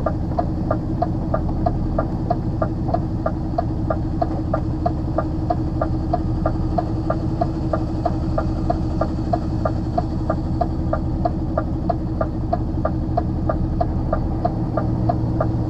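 Lorry's diesel engine running, heard from inside the cab, with a steady light ticking about four times a second over it.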